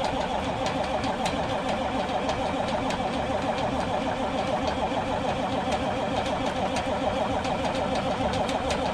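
Cold-start attempt on a 1991 International 9670 Eagle's Cummins Big Cam II 350 diesel: a steady, even engine drone with a fast pulse and no pauses.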